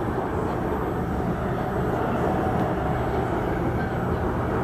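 MRT metro train running at speed, heard from inside the carriage: a steady rumble of wheels on rail and running gear, even in level, with no distinct clicks or changes.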